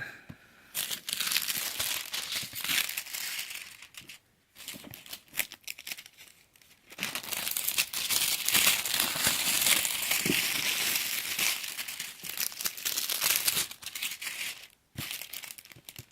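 Packaging crinkling and rustling as it is unwrapped by hand, in two long spells with a quieter pause between them.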